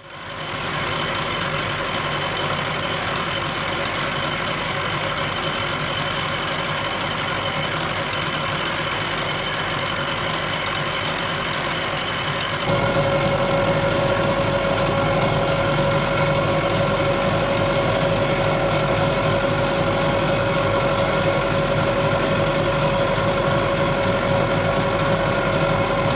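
Vertical milling machine running a 3/4-inch end mill along the edge of a cast iron straight edge, making a steady mechanical running sound. About halfway through it becomes abruptly louder, with a steady whine.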